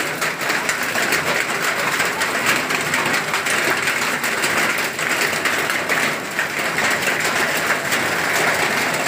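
Hailstones pelting down, a dense, steady clatter of countless small impacts on corrugated metal roofing and the ground.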